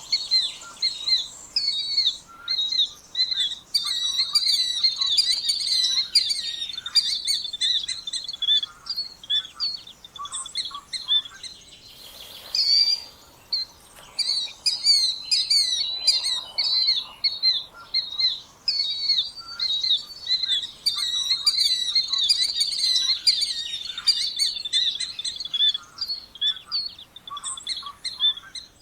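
Killdeer calling, a dense stream of rapid, shrill, repeated notes, with a brief gap about twelve seconds in.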